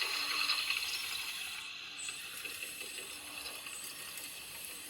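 RC excavator driving on its tracks: the track drive motors and gearboxes whir steadily, with a dense mechanical clicking from the gears and track links.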